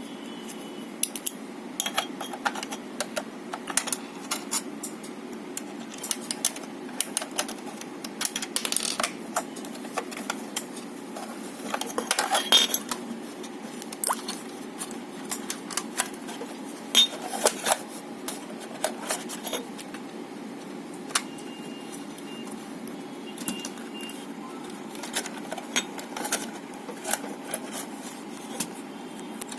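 Irregular light clicks and metallic clinks of a small screwdriver turning screws into an exit light's shell, with small parts handled in between.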